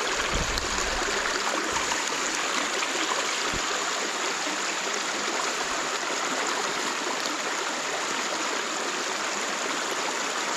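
Small creek's water rushing steadily, an even hiss that does not change, with a few dull low bumps in the first second.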